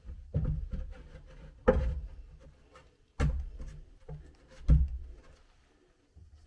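A reclaimed wooden plank being set down and shifted on the wooden frame of a cellar staircase as a stair tread is test-fitted: four sharp wood-on-wood knocks about a second and a half apart, with scraping and rubbing between them.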